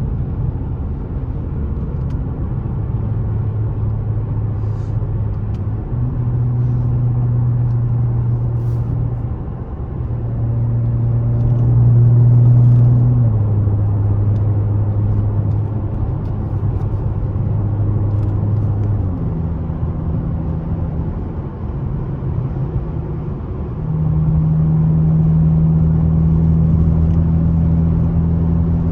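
Dodge Challenger SXT's V6 running through aftermarket BigBoz 5 mufflers while driving: a steady low exhaust drone whose pitch steps up and down several times as speed and gear change, getting louder near the end.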